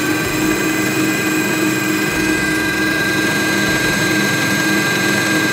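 Kenwood stand mixer running steadily with a motor whine, its paddle beating butter and vegetable shortening in the steel bowl.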